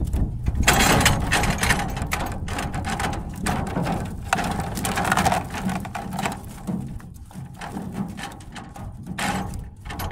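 A fishing net being hauled over the side of a wooden boat: dense, irregular splashing, rustling and knocks, with fish flapping against the hull.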